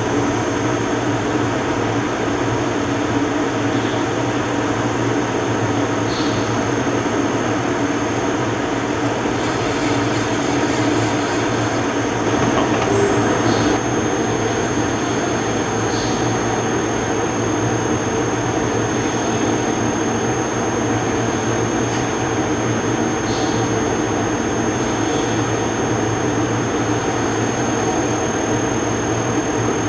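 Gildemeister NEF 520 CNC lathe running: a steady mechanical hum and rumble with a thin high-pitched whine held throughout, and a few faint ticks every few seconds.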